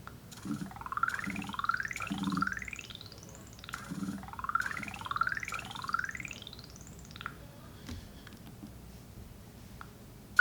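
Nokia 6010 ringtone playing through the phone's speaker: a phrase of three quick rising electronic sweeps, each climbing from low to very high, with a low pulse under each. The phrase plays twice.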